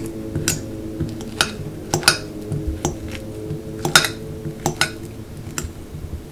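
Metal fork mashing bananas in a ceramic bowl, the tines striking the bowl in about nine sharp, irregular clinks.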